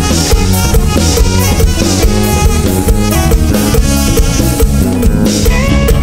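Live band playing an instrumental passage, with a drum kit keeping a steady beat.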